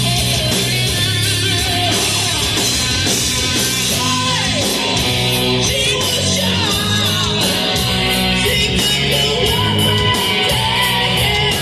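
Hard rock band playing live: distorted electric guitar with bent, sliding notes over bass and drums, with a steady cymbal beat coming in about four seconds in.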